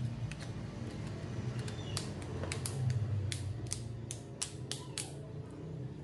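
Plastic snap clips of a Huawei Y6 II smartphone's housing clicking into place as the frame is pressed together by hand: a rapid, uneven series of sharp clicks, loudest in the second half, over a steady low hum.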